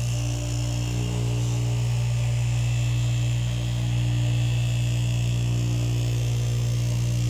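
Electric straight-knife fabric cutting machine running with a steady hum as its vertical reciprocating blade cuts through cloth.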